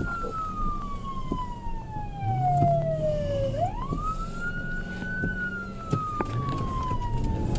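Police car siren on wail, heard from inside the pursuing patrol car: the tone falls slowly, sweeps quickly back up about three and a half seconds in, then falls again. The patrol car's engine runs underneath.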